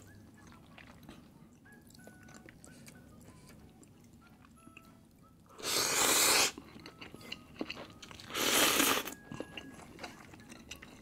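Close-up eating of instant laksa noodles: quiet chewing with small wet clicks, broken by two loud slurps of under a second each, about halfway through and again two to three seconds later.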